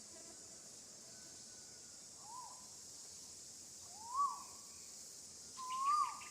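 Baby monkey giving coo calls three times, each rising and then falling in pitch. The calls grow louder and longer, the last the longest, over a steady high hiss.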